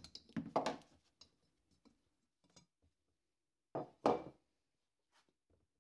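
Rubber mallet striking an alternator to drive the rotor shaft and bearing out of the aluminium front cover. There are two quick knocks, then a louder pair of blows about four seconds in and a couple of light taps near the end.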